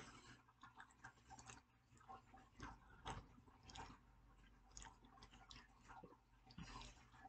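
Faint chewing and crunching of breaded, fried popcorn shrimp, in irregular short crunches and mouth clicks.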